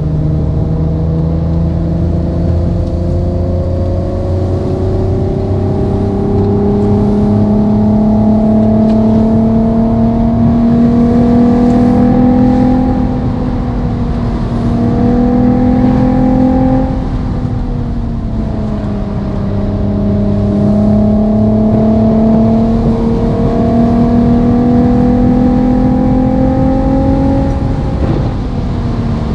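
Simulated sports-car engine and exhaust sound from a car-sound app, following a car driven at moderate throttle. The engine note climbs slowly in pitch over several seconds, then falls back when the revs drop: a few times, about halfway through and near the end.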